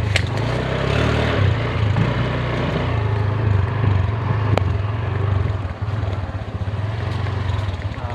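An engine running steadily, settling into an even, pulsing idle near the end.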